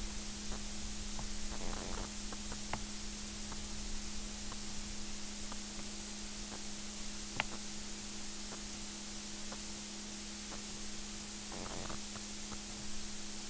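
Steady hiss with a steady low hum underneath and a few faint clicks: room tone as picked up by a low-quality camera microphone.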